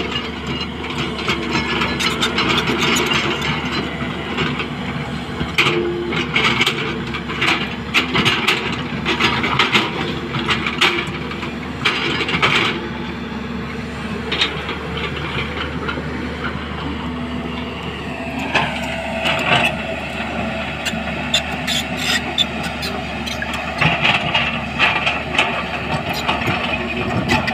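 JCB 215 tracked excavator's diesel engine running steadily as the machine works, with repeated short knocks and clanks from the digging gear.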